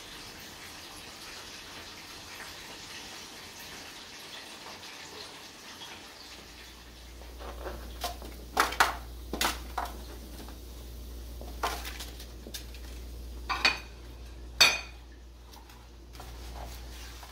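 Broccoli and carrots tipped from a plastic cutting board into a foil-lined metal baking pan: a run of clattering knocks and rustles, with two sharper knocks near the end. A steady hiss fills the first several seconds, and a low hum comes in about six seconds in.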